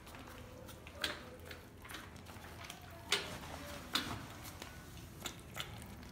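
Several kittens eating raw minced meat from a plate: wet smacking and chewing clicks at an irregular pace, with a few sharper ones about a second, three seconds and four seconds in.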